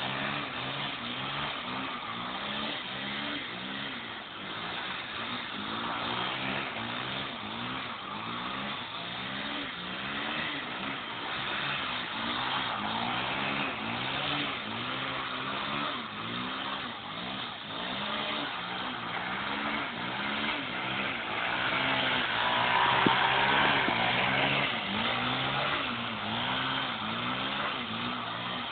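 Honda XR250 Tornado's single-cylinder engine being revved up and down over and over, about once a second, as the motorcycle is ridden, over a steady rushing noise.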